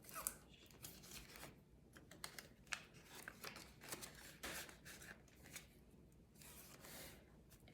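Faint, scattered rustles and small ticks of paper bills and a zippered pouch in a cash-envelope binder being handled.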